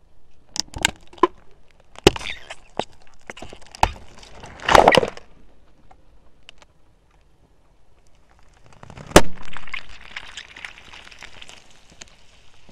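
Plastic tubes filled with slime cracking and splitting under a car tyre: a run of sharp cracks, loudest about five seconds in. After a lull, another loud crack about nine seconds in is followed by a few seconds of crackling as the tyre crushes something else.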